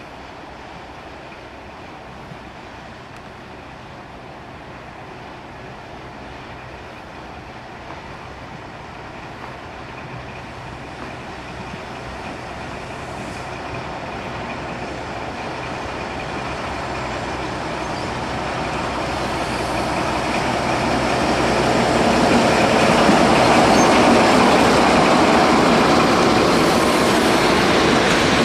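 Diesel locomotive hauling a freight train approaching, growing steadily louder for about twenty seconds, then the freight wagons rolling past close by near the end.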